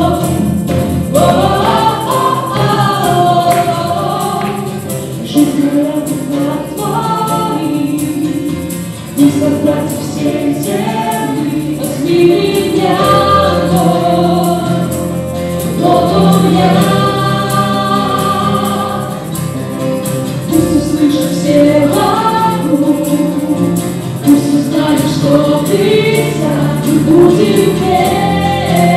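A live worship band performing a song: men and women singing together into microphones over acoustic guitar, electric guitar and keyboard.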